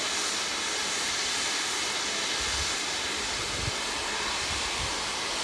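Steady rushing wind hiss, with low gusts buffeting the microphone from about two seconds in.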